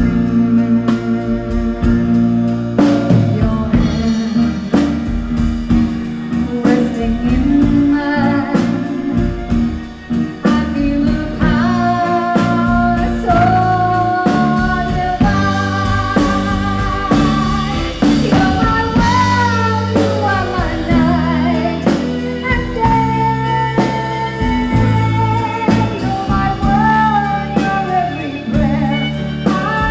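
A live band playing, with a woman singing lead into a microphone over drum kit and violin. The opening seconds are instrumental; the vocal comes in several seconds in and carries on with a wavering vibrato.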